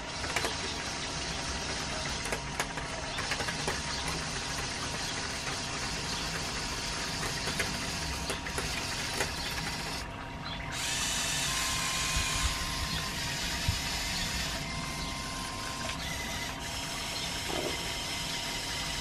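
Small LEGO Technic electric motors and plastic gearing of a remote-controlled model excavator whirring as it drives on its tracks. After a short break about halfway through, the sound turns to a higher-pitched whine as the motors drive the long linear actuators that raise and swing the arm and bucket.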